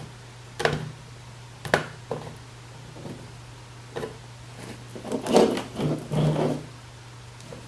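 Handling noise from a PC power supply's main motherboard power connector and its cables being turned and tried in place: a few separate sharp clicks and knocks, then a longer stretch of rattling and rubbing about five seconds in. A steady low hum runs underneath.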